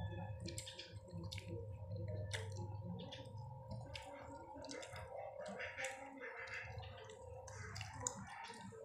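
Close-up eating sounds of people eating chicken liver and gizzard adobo with rice by hand: soft chewing and lip smacks with scattered small clicks. A faint steady hum runs underneath.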